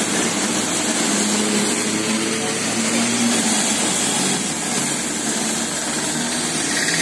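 Traffic on a wet city road: auto-rickshaw, bus and car engines running as they pass, over a steady hiss.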